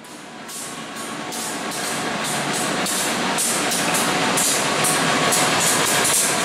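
KAI CC 201 diesel-electric locomotive (GE U18C) running light through the station, growing louder as it approaches over the first few seconds and then passing close. The engine runs steadily under a rhythmic clatter of two to three clicks a second from its wheels.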